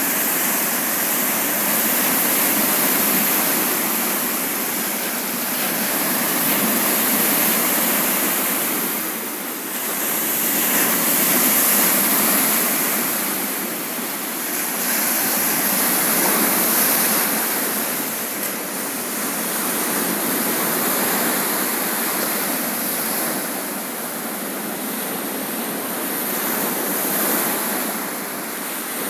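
Baltic Sea surf: a steady rush of breaking waves, swelling and easing every four to five seconds.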